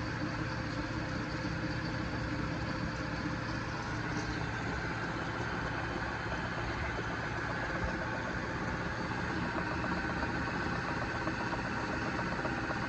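Lathe headstock and phase converter running steadily at low speed, giving an even mechanical hum with a constant tone that does not change.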